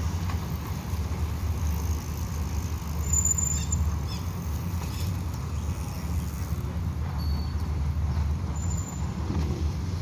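Wind buffeting the microphone, a steady uneven low rumble.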